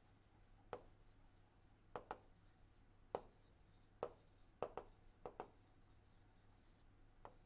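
Faint stylus writing on a pen tablet: a light, high scratching with a string of small taps as the pen touches down and lifts between strokes.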